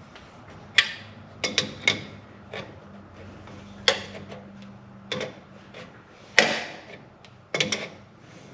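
Irregular metallic clicks and clinks of a hand wrench and metal fittings as A/C hose lines are fitted and tightened, about a dozen sharp hits, with the loudest a little past the middle.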